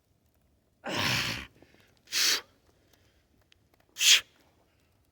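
Hard, sharp breaths of a man straining under a 48 kg kettlebell: a longer forceful exhale about a second in, then short sharp breaths about every two seconds.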